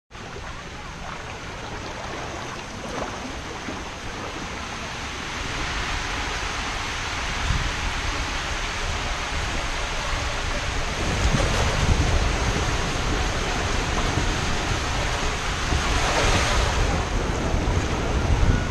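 Water rushing and splashing around a rider sliding down an enclosed tube water slide, a steady noise that grows gradually louder and heavier through the ride.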